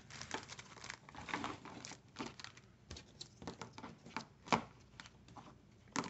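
Plastic packets crinkling and a small plastic box clicking as they are handled on a table: a run of faint, irregular rustles and light clicks.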